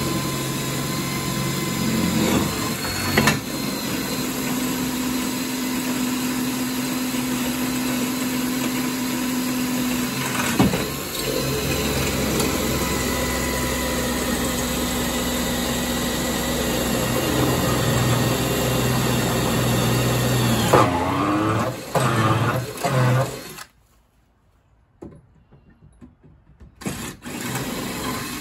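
Handheld electric drill running steadily, boring a bolt hole through aluminum tubing, its pitch shifting a few times as it cuts. It stops about three quarters of the way through, followed by a few short knocks.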